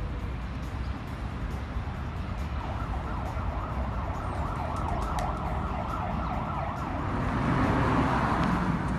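Outdoor city ambience: a steady low rumble of traffic and wind on the microphone, growing louder near the end.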